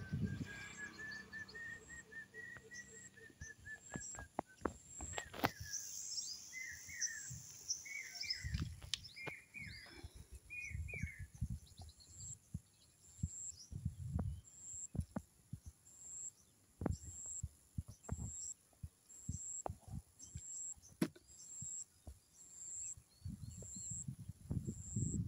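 Outdoor ambience of birds calling now and then: a long curved call near the start, then a run of short chirps in the middle. A faint high tick repeats about once a second, and low rumbles hit the microphone several times, most toward the end.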